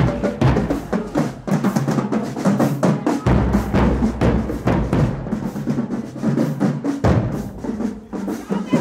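Marching band drumline playing a fast cadence: snare drums, tenor drums and bass drums beating a dense, steady rhythm.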